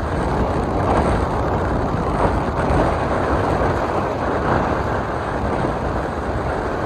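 Steady wind noise buffeting the microphone on the deck of a moving tour boat, over the rush of the bay's choppy water and the boat's running noise.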